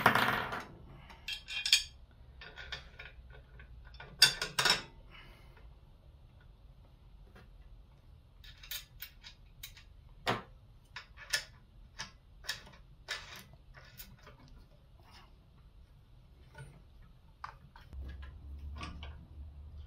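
Scattered metallic clicks, clinks and light knocks of a mini tiller's handlebar arm and its bolts and washers being handled and fitted, with a louder knock about four seconds in.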